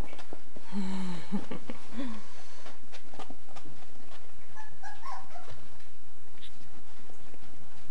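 Puppy making a few short low vocal sounds about a second and two seconds in, then brief higher whimpers around five seconds in, with small clicks and scuffs from its paws on the fabric.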